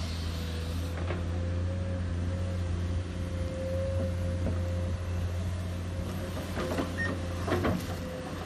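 Komatsu PC210 hydraulic excavator digging: its diesel engine runs steadily under load with a steady hydraulic whine over it. A clank comes about a second in, and a cluster of clanks and scrapes near the end as the bucket works the soil.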